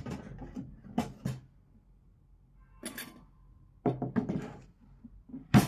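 Heavy-gauge steel pistol case being handled: a handful of short knocks and clicks at irregular intervals, with quiet between them.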